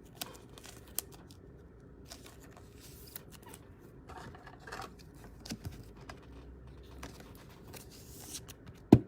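Faint handling of trading cards, with small clicks and short rustling scrapes. Near the end there is a quick run of about five loud short pulses.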